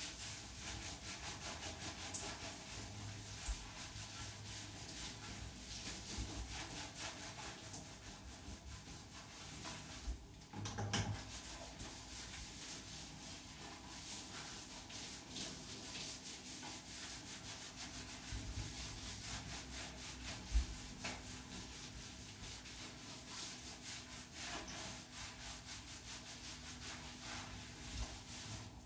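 A bath mitt scrubbing shampoo lather into a wet Saluki's coat: a steady run of quick rubbing strokes, with a few soft knocks.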